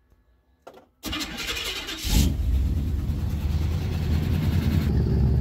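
Stock throttle-body-injected Chevrolet 454 big-block V8, breathing through headers and dual exhaust, being started. It cranks from about a second in, catches with a rev just after two seconds, then runs steadily.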